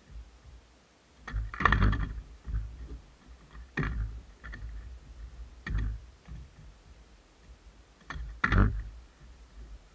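Skateboard knocking and clacking on a mini ramp's flat bottom during flip-trick attempts: a series of sharp hits a second or two apart, with fainter knocks and wheel rumble between them. The loudest hits come about a second and a half in and near the end, as the board is flipped and comes down.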